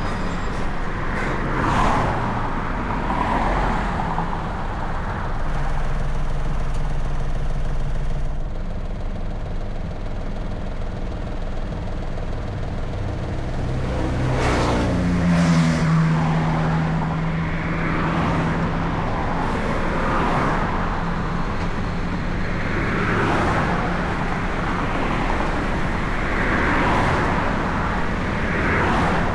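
Car driving in traffic: steady road and engine noise that swells every few seconds as vehicles go by. About halfway through, an engine note slides down in pitch and holds for a few seconds.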